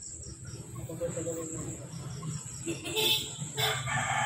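Crickets trilling steadily at a high pitch, with a rooster starting to crow about three seconds in, the loudest sound.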